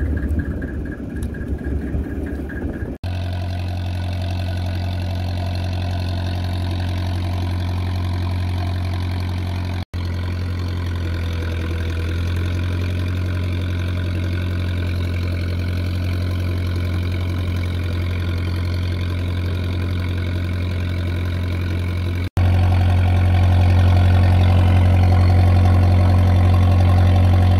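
Boat engine running at a steady low hum. The sound breaks off abruptly three times and is a little louder after the last break.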